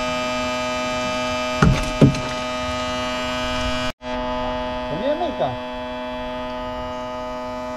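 A steady droning hum made of several fixed pitches, with two short knocks about two seconds in and a brief dropout near the middle.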